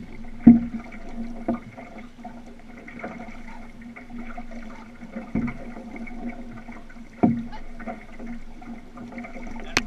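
Water washing and lapping along the hull of a moving outrigger canoe, with a steady low hum underneath and a few irregular dull knocks on the hull.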